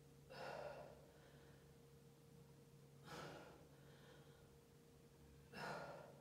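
A person breathing out hard three times, about two and a half seconds apart, in time with overhead presses of a resistance band, over a faint steady hum.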